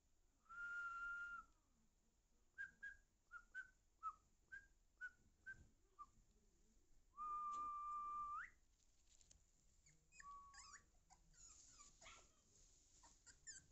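Puppies whining and whimpering: a long steady high-pitched whine, then a quick string of about nine short squeaks falling in pitch, another long whine that rises sharply at its end, and scattered squeaky whimpers near the end.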